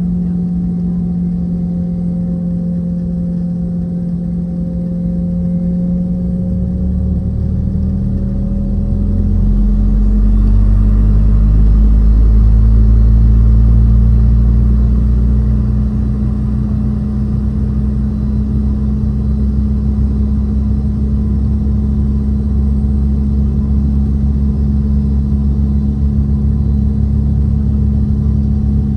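Boeing 717-200's rear-mounted Rolls-Royce BR715 turbofans heard from inside the cabin: a steady engine hum whose pitch rises slightly about seven to ten seconds in, while a deep rumble swells and then settles to a steady level.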